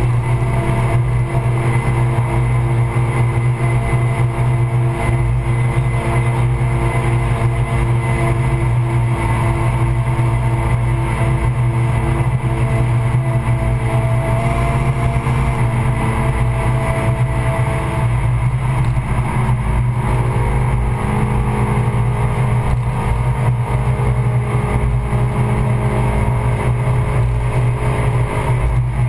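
Suzuki Swift Sport's 1.6-litre four-cylinder engine running hard at track speed, heard inside the cabin over road and wind noise. The engine note changes pitch about two-thirds of the way through.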